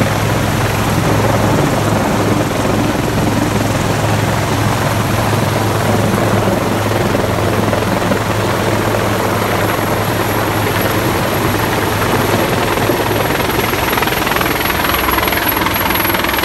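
Japan Coast Guard helicopter close overhead: the steady, loud noise of its rotor and turbine engines, with a thin high whine over it.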